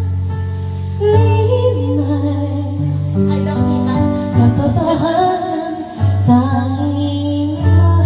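A woman singing a slow ballad into a microphone over an instrumental backing track, holding long notes.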